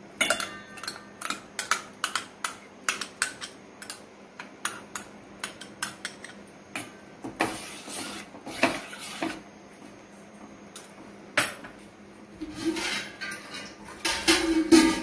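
A metal spoon clinking and scraping against a stainless steel pot and a glass bowl as ground spice paste is scraped in and stirred into the rasam liquid: many sharp clinks, roughly one or two a second, with a few short scraping stretches.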